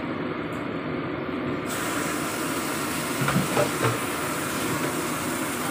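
Steady hiss from the stove and the pot of soup heating on it, growing fuller and brighter a little under two seconds in.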